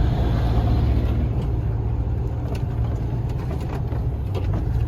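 Semi-truck engine running with a steady low hum, with some road or cab noise above it.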